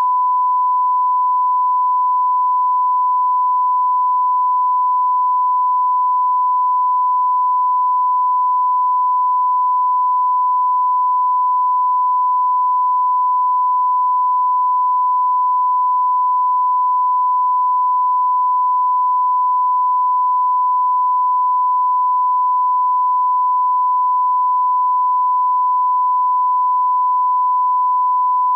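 Steady 1 kHz reference tone, the line-up tone played with SMPTE colour bars at the head of a broadcast tape to set audio levels. It holds one unchanging pitch and cuts off abruptly near the end.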